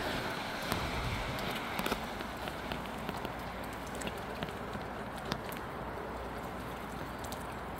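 Rain shower falling steadily as an even hiss, with frequent sharp ticks of raindrops striking a nearby surface. The hiss is a little stronger in the first two seconds.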